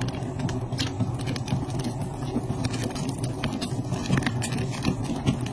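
Popcorn kernels popping inside a lidded pot of foaming melted sugar and oil, many sharp irregular pops, over a steady rumble as the pot is shaken on the burner.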